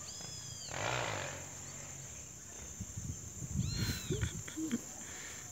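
Birds calling by a reedy marsh: short arching whistled calls at the start and again near four seconds, over a steady high thin drone, with low rustling knocks in between.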